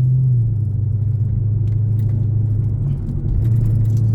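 Dodge/Chrysler LX-platform car heard from inside the cabin while driving: a steady low drone of engine and road noise that drops slightly in pitch about half a second in.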